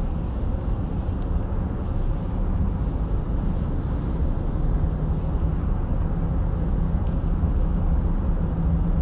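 Car in motion heard from inside the cabin: a steady low rumble of engine and road noise.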